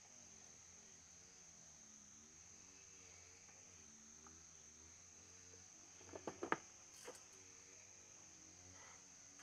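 Steady high chirring of insects in the background, with a quick run of four or five sharp clicks about six seconds in and one more just after, as the fan's plastic grille and blade are handled.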